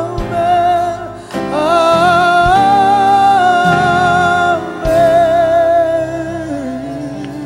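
Live gospel music: a melody held in a few long notes with vibrato over instrumental accompaniment, with brief breaks between phrases.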